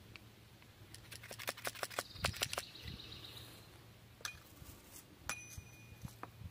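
A quick run of small, sharp metallic clicks and clinks from a .357 firearm being handled, then a few single clicks, one with a short bright ring.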